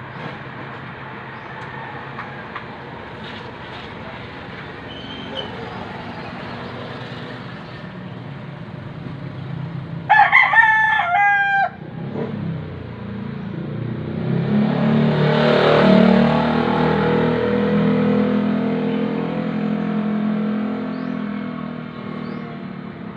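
A rooster crows once, loud, about ten seconds in. Then a vehicle passes, its sound swelling and fading away.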